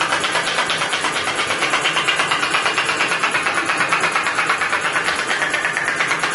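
ASMI (Advanced Spinal Mobilisation Instrument) handpiece running, its pistons pulsing rapidly and evenly against the patient's back, a steady mechanical buzzing rattle at about seven pulses a second.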